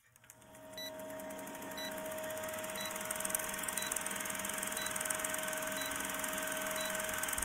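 Old-film countdown sound effect: a film projector's steady rapid clatter and hum, fading in over the first couple of seconds, with a short beep about once a second.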